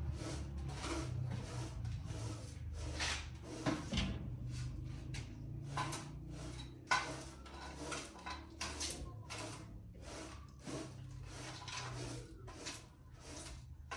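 Irregular scraping and knocking, with many short strokes at uneven intervals, over a steady low hum.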